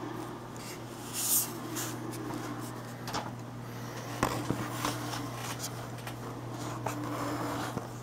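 Phone handling noise as the camera is moved and set in place: rustles and a few sharp clicks, loudest about a second in, with more clicks around the middle. Under them a steady low hum from a dishwasher running in the background.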